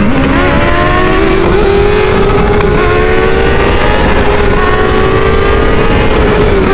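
A 600 cc inline-four sport motorcycle engine pulling hard under acceleration, its pitch rising steadily for several seconds and easing slightly near the end, over loud wind rush.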